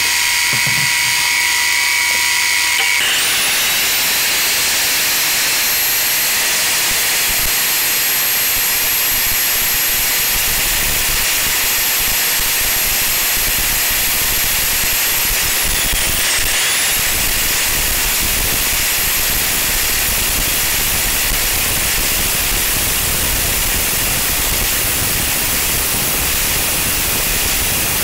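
Electric motor of a Bosch Rotak 32 lawnmower whining as it spins its welded metal pulley. About three seconds in, an angle grinder starts up, its whine rising and settling to a steady high pitch, and it runs on grinding the spinning metal pulley true. Its pitch dips briefly and recovers about halfway through.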